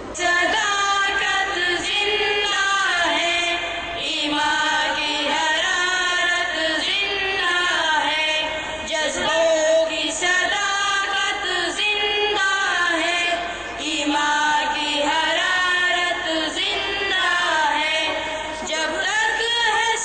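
Schoolboys singing a nazm, an Urdu poem, as a melodic chant-like song with young voices, without a break.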